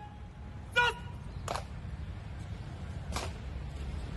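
Low steady outdoor rumble. About a second in there is a short pitched call that dips in pitch, followed by three faint sharp clicks roughly a second and a half apart.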